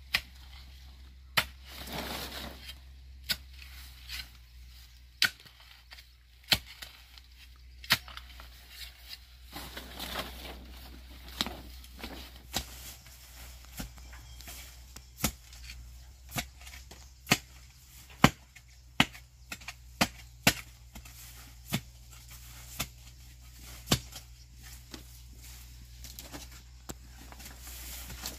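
A hand tool chopping: a long series of sharp strikes, roughly one a second and not evenly spaced, with some rustling between them.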